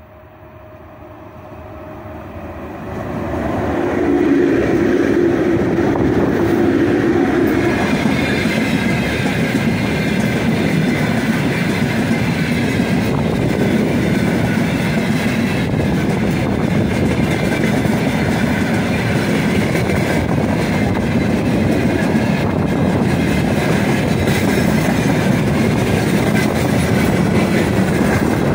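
3ES5K Ermak electric freight locomotive approaching and passing at speed, its sound building over the first four seconds. A long train of tank cars then rolls by with a steady rumble and clatter of wheels on the rails.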